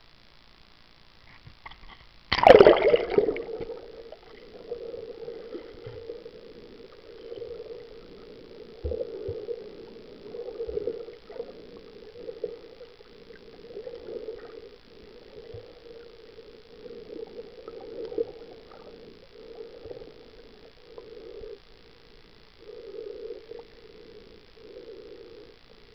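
A sharp splash about two and a half seconds in as the camera goes under the sea surface, then muffled underwater water noise: a low rushing that swells and fades about once a second.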